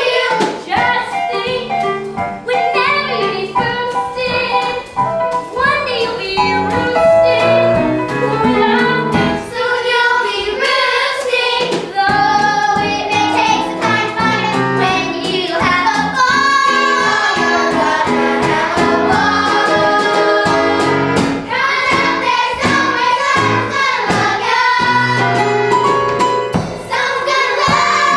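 Children singing a musical-theatre song over instrumental accompaniment.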